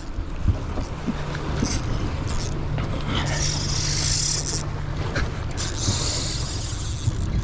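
A boat's engine runs steadily under light mechanical clicking, with two long bursts of hiss about three and about five and a half seconds in.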